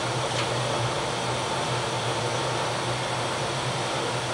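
Steady machinery and ventilation noise of a steam frigate's engineering space: an even rushing noise over a constant low hum.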